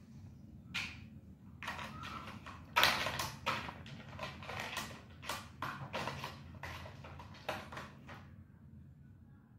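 Plastic toy dump truck batted and shoved by a cat's paw across a tiled floor: a run of a dozen or so light plastic knocks and clatters, the loudest about three seconds in, dying away near the end.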